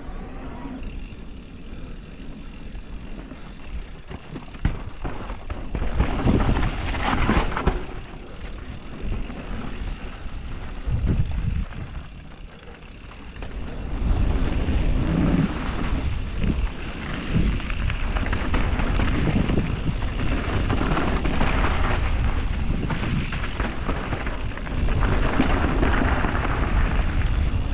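Wind buffeting the microphone: an uneven low rumble that swells in gusts and gets louder about halfway through.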